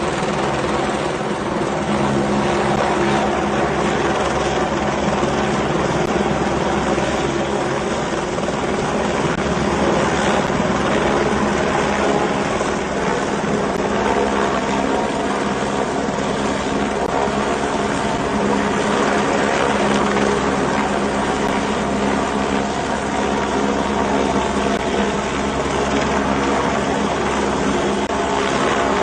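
Firefighting helicopter's rotor and engine running steadily close by, a dense, even chopping drone.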